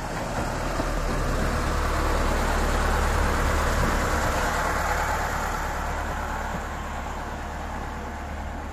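Small 600 mm narrow-gauge diesel locomotive running past at low speed, its steady low engine note growing louder as it comes closest about three seconds in, then slowly fading as it moves away.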